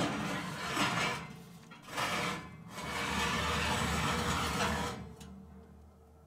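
Ceramic baking dish scraping and sliding over an oven's metal wire rack as it is pushed in, in several strokes, loudest at the start and the longest stroke from about 3 to 5 seconds in, then fading.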